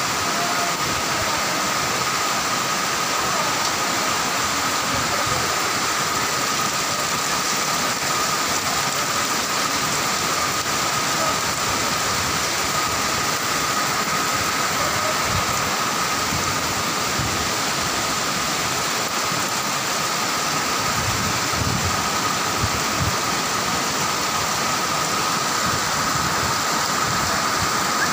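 Torrential rain and rushing floodwater making a loud, steady, even noise, with a thin steady high tone running through it.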